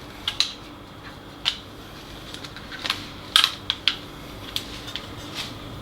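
Scattered small clicks and taps from fingers working at the tight SD card slot of a plastic CHWARES video doorbell camera, trying to get the card out. A faint steady hum sits behind them.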